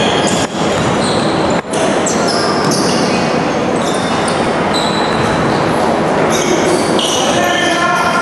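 Indoor basketball game in a large, echoing gym: sneakers squeak sharply and often on the court floor, and the ball bounces, over a steady wash of room noise.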